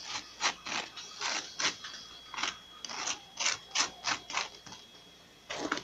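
Rasping scrapes of a utensil spreading butter, about two or three strokes a second, pausing after about four and a half seconds, with one more stroke near the end.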